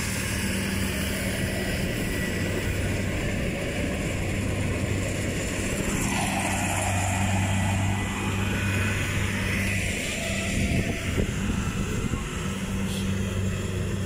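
Kubota farm tractor's diesel engine idling steadily with a constant low hum. A rushing noise swells and fades about halfway through.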